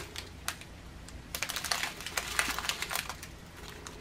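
Small plastic zip bags of round diamond-painting drills being handled and shuffled: the plastic crinkles and the drills inside rattle in quick clicks, coming in short irregular spells, busiest in the middle.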